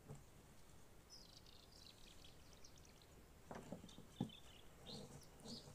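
Near silence with faint bird chirps, a short run of high calls falling in pitch, and a few soft knocks about three and a half seconds in.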